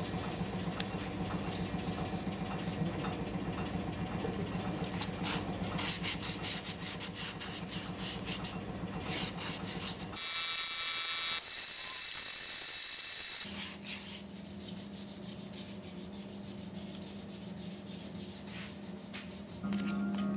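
A wooden kuksa cup being hand-sanded with sandpaper: quick back-and-forth rubbing strokes, strongest a few seconds before the middle. Partway through the rubbing gives way for a few seconds to a high, steady ringing sound, then comes back softer.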